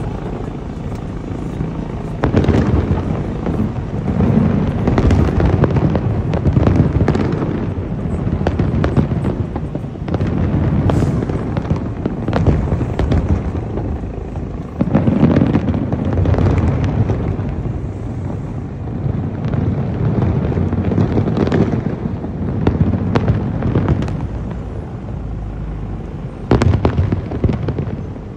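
Large aerial fireworks display: a dense, continuous barrage of booms and crackling bursts, with a cluster of sharper bangs near the end.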